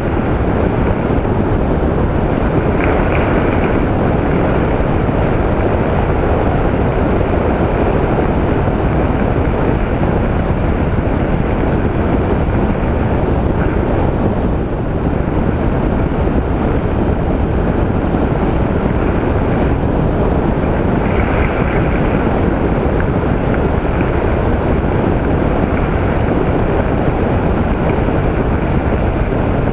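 Steady rushing wind noise on a helmet-mounted microphone whose lost windsock has been replaced with a makeshift piece of ShamWow, over the engine and road noise of a Honda ST1300 motorcycle cruising at road speed.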